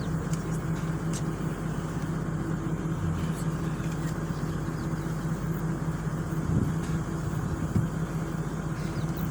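Vehicle engine running steadily with a constant low hum and road noise, heard from inside the cabin.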